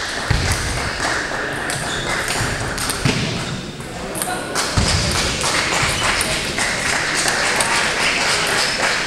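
Table tennis balls clicking off bats and tables, many rallies going at once in a large sports hall, over a murmur of voices. Three dull low thumps stand out, near the start, about three seconds in and about five seconds in.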